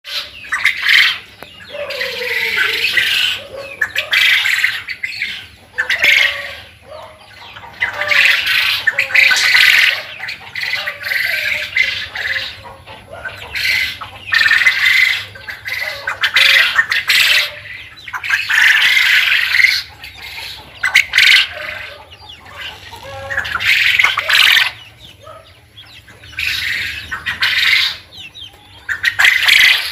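A flock of caged quail calling in loud, noisy bursts every second or two.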